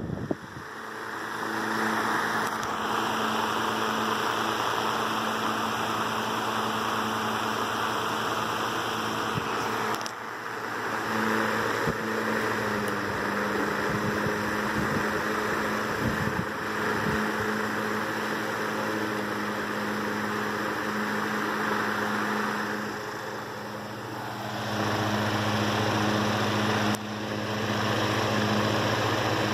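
Freshly restored 1918 Emerson electric desk fan starting up and running: the rush of air from its spinning blades builds over the first couple of seconds, over the steady hum of its AC motor. Near the end the motor is heard close up, its hum louder and the air rush fainter.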